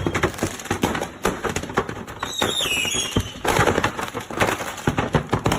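Fireworks going off: a dense run of sharp pops and crackles, with a brief high tone falling in pitch about two and a half seconds in.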